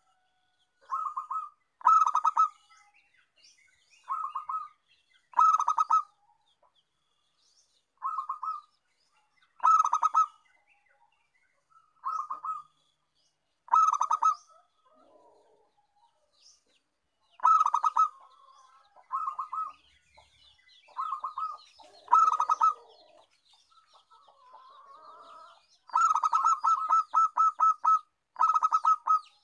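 Zebra dove (perkutut) cooing: short rolling phrases repeated every second or two, then a quick run of repeated notes near the end.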